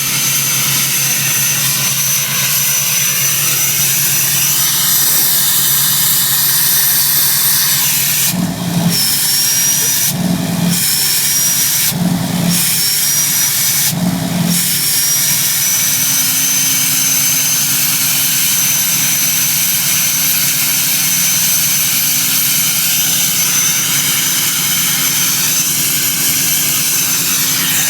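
Turbocharger on a 5th-gen Dodge pickup's engine whistling with a steady high pitch over the running engine. Four short breaks come between about 8 and 15 seconds in, and after each one the whistle slides back up in pitch.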